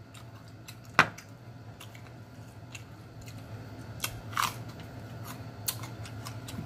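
Close-up eating sounds: chewing, with a sharp click about a second in and a crisp crunch of biting into a fresh jalapeño pepper about four seconds in, over a low steady hum.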